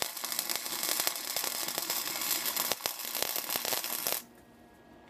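Gasless flux-core wire-feed welder laying a bead on a steel fork brace: the arc gives a steady, dense crackle that cuts off suddenly about four seconds in.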